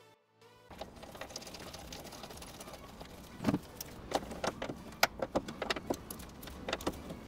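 Irregular light metallic clicks and clinks of a hand tool and small steel parts, a bolt, bracket and spring, being handled and fitted at a pickup tailgate hinge, over a steady background hiss. The clicks come thicker from about halfway in.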